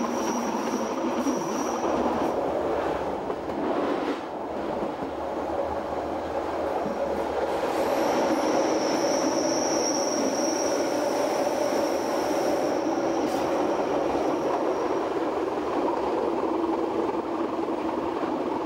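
Metre-gauge electric train running over the rails: a steady rolling rumble, with a thin high-pitched wheel squeal near the start and again from about eight seconds in for several seconds. The running noise grows a little louder and fuller around the middle as the train passes through a short tunnel.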